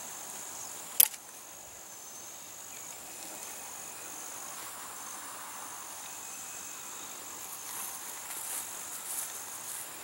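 One sharp snap about a second in as a hand catapult's rubber band flings an elastic-launched glider into the air, over steady high-pitched chirring of insects.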